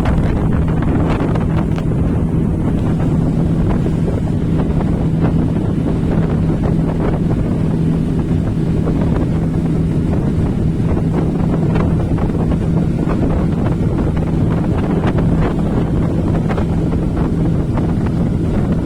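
Motorboat engine running at a steady, constant pitch, with heavy wind on the microphone.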